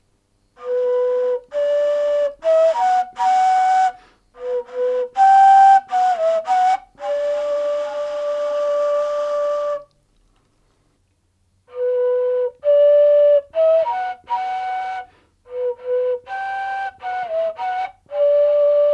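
Ney, an end-blown reed flute, playing a short, breathy melodic phrase of stepping and held notes. After a pause of about two seconds it plays the same phrase again. The first take is recorded through a Shure SM57 dynamic microphone and the second through a T.Bone RB 770 ribbon microphone.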